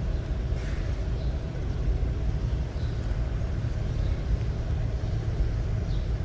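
Steady low outdoor rumble with no clear events.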